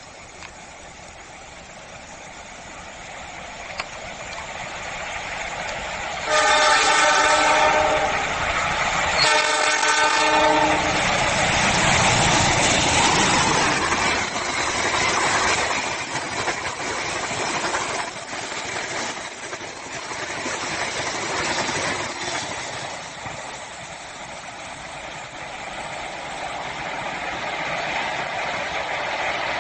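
A train approaches and sounds its multi-tone horn in two blasts of about a second and a half each. It then passes close by, its wheels clattering rhythmically over the rail joints, and the rumble dies away.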